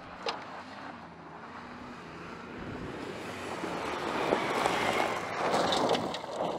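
2018 Ford Expedition's twin-turbo 3.5-litre V6 engine and tyres on loose dirt and gravel as the SUV drives fast along an off-road trail. The rushing sound grows steadily louder as it approaches and sweeps past close by, with crackling gravel ticks in the last two seconds.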